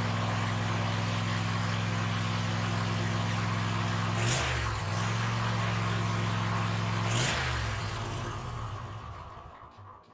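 Cub Cadet ZT1 zero-turn mower's engine running steadily. Twice its pitch dips briefly with a short rush of noise, and near the end the sound fades away without any change in pitch.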